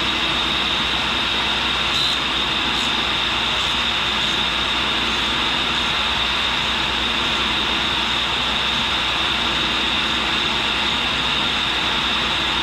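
A 1942 Cincinnati tool and cutter grinder running, its wheel grinding the point of a carbide drill. It makes a steady whir with a high hiss throughout.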